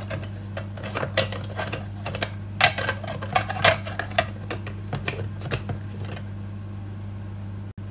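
Irregular plastic clicks and knocks as the bowl and lid of a small electric food processor are twisted and locked into place, over a steady low hum; the clicking stops about a second before the end.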